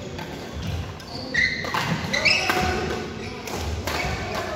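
Badminton rally: racket strings hitting a shuttlecock several times, sharp knocks, with short high squeaks of shoes on the court mat and players' footsteps.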